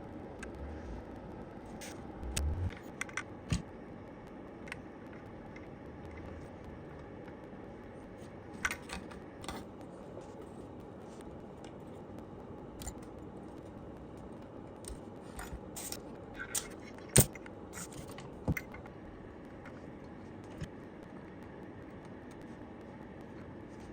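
Scattered light clicks and taps of small parts and tools being handled on a workbench, with a soft thump about two and a half seconds in and one sharper click about seventeen seconds in, over a steady background hiss.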